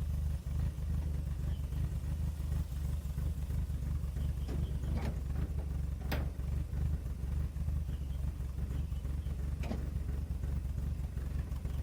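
Triumph Spitfire's four-cylinder engine idling steadily after its first start in about 40 years, its carburettor still needing a little tuning. A few short sharp clicks sound over it in the middle and near the end.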